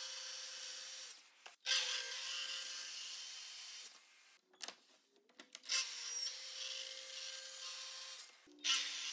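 Festool TS 60 plunge track saw running and cutting through a wooden countertop, with a steady high motor whine. It comes in three stretches, each starting abruptly, with a short break about a second in and a longer quiet gap near the middle that holds a few light clicks.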